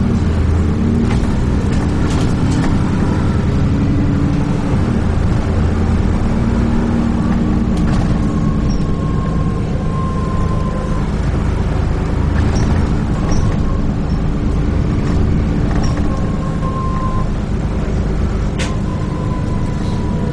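Dennis Trident 2 double-decker bus under way, heard from inside: a steady engine drone with road noise, a few scattered rattles and clicks, and a faint whine that comes and goes.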